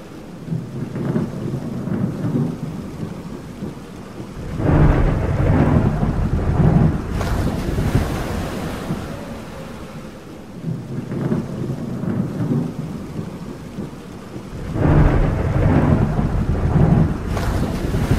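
Stormy sea ambience: a steady wash of rain and wind, with a deep roll of thunder twice, about ten seconds apart.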